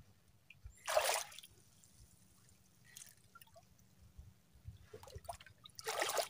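Two short spurts of splashing water, about a second in and again near the end, from a freshly caught squid squirting water.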